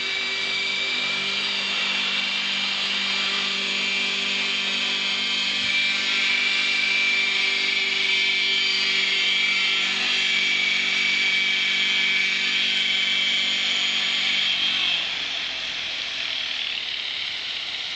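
Radio-controlled model helicopter running steadily, a high, even motor-and-rotor whine. Its lower tones fade out about 15 seconds in.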